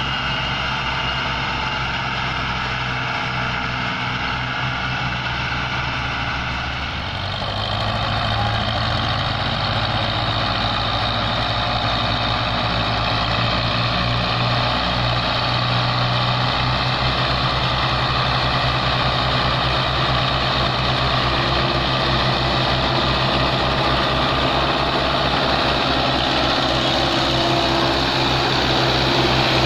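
Diesel tractor engines of a Belarus 510 and a Massey Ferguson 260 running steadily under load, pulling a fully loaded trolley across soft ground. About seven seconds in the engine note changes and becomes slightly louder.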